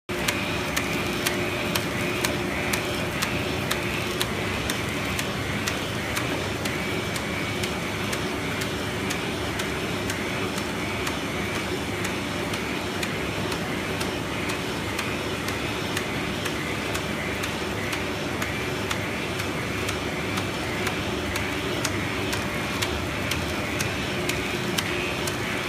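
Kopack 250 machine running steadily, a constant mechanical hum and whir with sharp regular clicks about three times a second.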